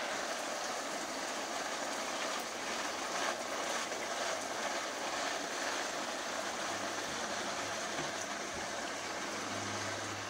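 Steady rain coming down hard on wet pavement and grass, an even hiss.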